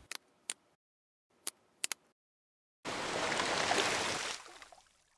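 Water-splash sound effect: a rush of splashing water lasting about a second and a half, then fading out. Before it come a few short clicks against dead silence.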